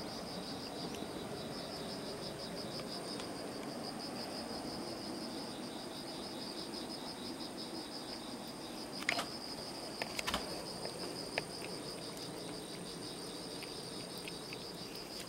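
Insects trilling steadily in a fast, pulsing chirr, with a few sharp clicks about two-thirds of the way through.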